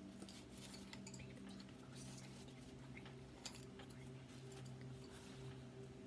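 Faint scattered clicks and rustles over a low steady hum.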